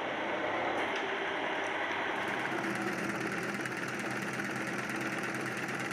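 A steady machine hum, then from about two seconds in an electric stitching machine runs, sewing the seam of a white cricket ball with a fast, even needle clatter.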